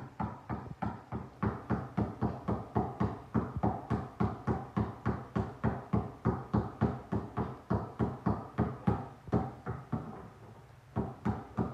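Basketball dribbled fast and low on a hard floor, steady bounces about four a second, with a short break near the end before the bouncing starts again.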